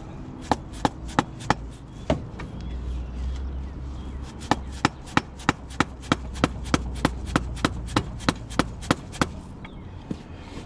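Repeated hammer blows driving a new CV axle's inner joint into the transmission to seat it: five strikes, a pause of about two seconds, then a steady run of about fifteen strikes at roughly three a second that stops near the end.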